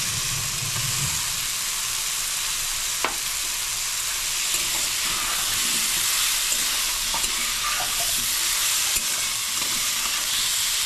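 Boiled potato cubes frying with a steady sizzle in a stainless steel kadai while a steel spatula stirs them through the masala, scraping and ticking against the pan, with one sharp clink about three seconds in.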